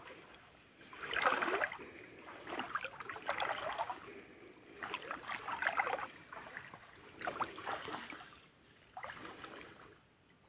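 Shallow creek water sloshing with each wading step, a swish every one to two seconds.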